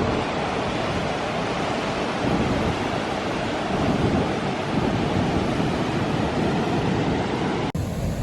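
Steady rushing noise of strong storm wind on the microphone, with ocean surf underneath. It breaks off sharply near the end, and a similar windy noise starts again at once.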